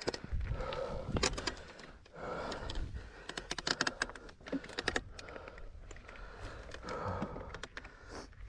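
Irregular rapid clicks and rattles from an electric mountain bike on a rough, rocky trail during a hard climb, with the rider's heavy breathing in long breaths about a second each.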